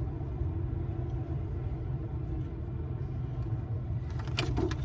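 Low, steady rumble of a car running, with a few light clicks near the end.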